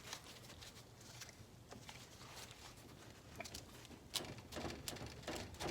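Faint scattered clicks and light scrapes of a hand tool working a stuck hydraulic piston out of a car overdrive housing. The clicks come more often near the end.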